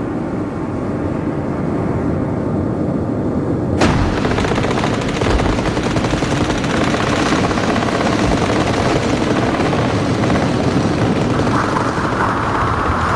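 Battle sound: a steady low rumble, then about four seconds in a sharp crack followed by continuous rapid gunfire and machine-gun fire.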